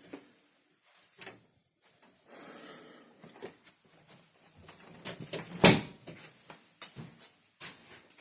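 Scattered clicks and knocks from things being handled, like a cupboard, drawer or door, with a soft rustling stretch about two seconds in and one loud sharp knock about five and a half seconds in.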